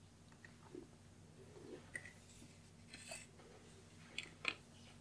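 Faint handling sounds of a knife being drawn from its leather sheath on a wooden cutting board: soft leather rubbing and a few light clicks and taps, the sharpest two near the end, over a low steady hum.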